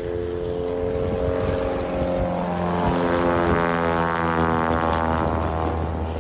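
Light propeller plane approaching: a steady engine-and-propeller drone that grows louder to a peak about halfway through, then eases off slightly.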